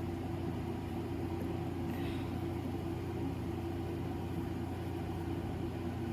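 Electric fan running with a steady low hum. A faint brief rustle comes about two seconds in.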